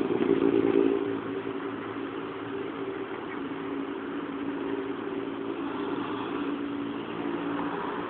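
Motor vehicle engine running as a steady hum, loudest in the first second and then holding on at a lower level.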